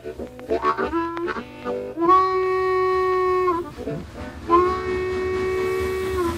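Harmonica playing a train imitation: a run of quick short notes, then two long held chords sounding like a train whistle's blasts.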